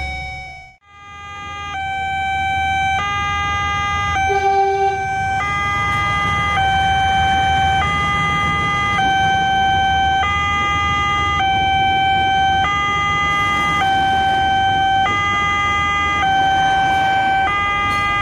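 Indonesian railway level-crossing alarm: an electronic two-tone warning that alternates between a higher and a lower chime about once a second, while a KRL electric commuter train passes. It fades in from silence near the start.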